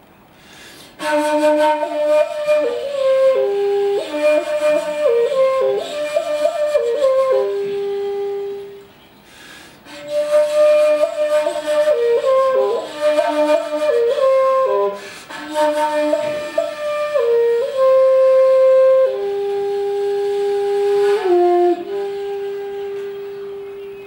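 Shakuhachi, the end-blown bamboo flute, playing a solo melody. Two phrases of quick ornamented note changes are broken by a short pause about nine seconds in, and the line settles into long held notes that step lower near the end.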